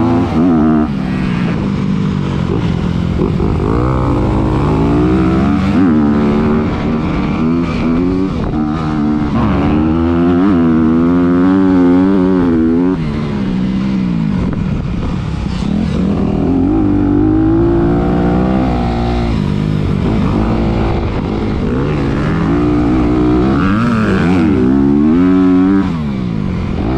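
Honda CRF250R single-cylinder four-stroke motocross bike engine being ridden hard, heard from on the bike: the revs climb and drop back again and again every few seconds as the rider works the throttle around the track. A second dirt bike runs just ahead.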